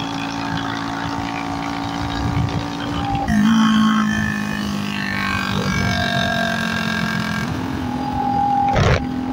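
Motorcycle engine running with its silencer removed, a loud open-exhaust drone. The pitch drops and the sound gets louder about three seconds in, rises again near the end, and a sharp crack comes just before the end.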